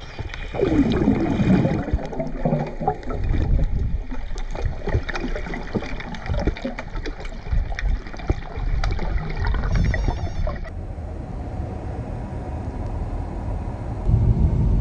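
Lake water splashing and gurgling close to the microphone. About ten seconds in it changes abruptly to a quieter steady rush.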